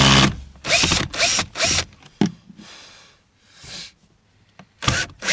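Power drill running in short bursts, its motor pitch rising with each squeeze of the trigger, while driving screws into a car door speaker mount. There are several quick bursts in the first two seconds and another near the end, with small clicks between.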